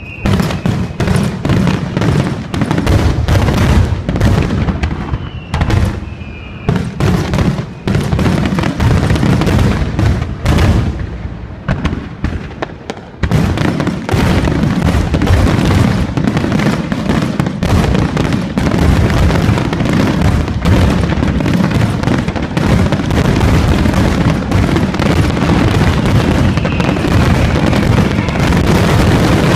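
Large aerial fireworks shells bursting in quick succession. About thirteen seconds in, the separate bangs merge into a continuous barrage of bursts.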